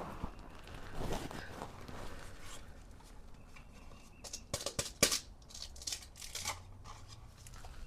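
Handling noises: soft rustling, then a cluster of sharp clicks and taps about four to six seconds in.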